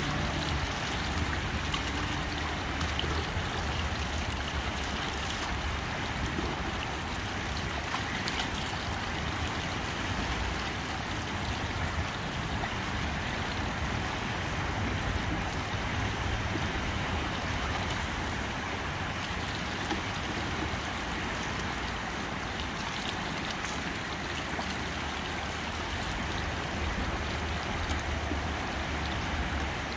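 Steady rush of a fast-flowing river running over rocks, with a low rumble that comes and goes underneath.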